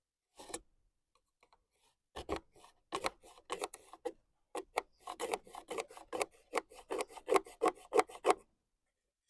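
Pencil drawing on pallet wood along a set square: a run of short scratching strokes, going back and forth faster toward the end as the line is drawn over.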